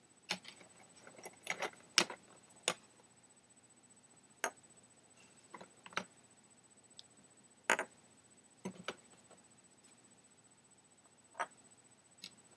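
Red Christmas ball ornaments clinking and knocking against glass and a wooden tabletop as they are handled and set down: scattered sharp clicks, about fifteen, irregularly spaced.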